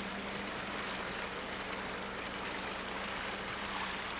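Boat motor running steadily, a low even hum under a constant hiss of wind and water.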